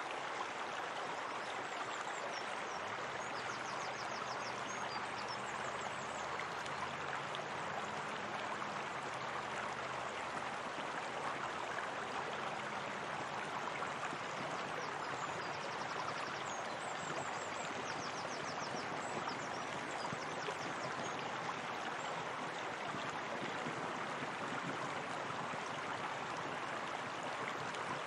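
Steady running water, like a stream pouring over a small cascade, with an even, unbroken rush.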